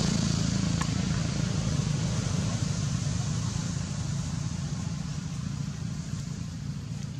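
A motor engine running with a steady low hum under a hiss, slowly fading away.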